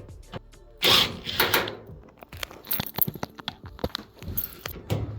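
Metallic jangling and rattling as tools and screws are handled during dryer disassembly: a loud rattle about a second in, then a string of small irregular clicks and clinks.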